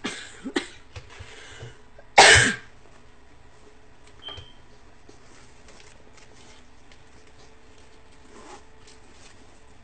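A single loud cough about two seconds in, after a few lighter handling noises as a handbag is opened and handled.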